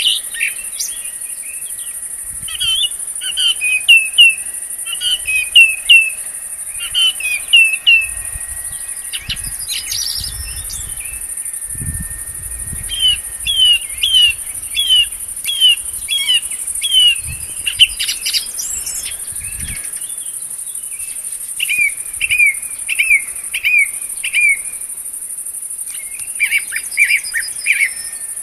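A songbird singing phrases of quick, repeated falling notes, pausing between phrases, over a steady high-pitched insect drone. A few low rumbles come through near the middle.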